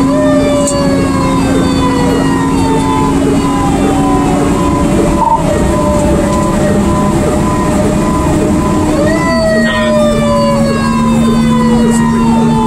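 Fire engine siren heard from inside the cab while responding: its pitch winds slowly down, is spun back up about nine seconds in, then winds down again. A short beep repeats about twice a second, over the steady drone of the truck's engine.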